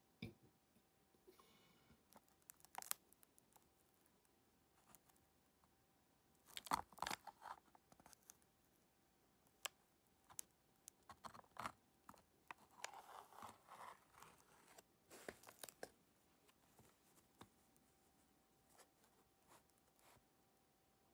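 Faint scattered rustling, crinkling and small clicks as fingers handle and shift a cardboard coin proof-set holder, with a louder cluster about seven seconds in and another stretch from about eleven to sixteen seconds in.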